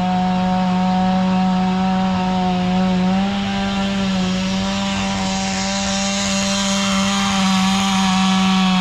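Two-stroke chainsaw held at full throttle at a steady pitch, its note stepping up slightly about three seconds in.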